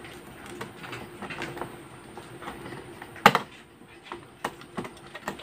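Screwdriver turning a brass terminal screw on a plastic switch board to clamp a wire, with small scraping clicks and one sharp click a little over three seconds in.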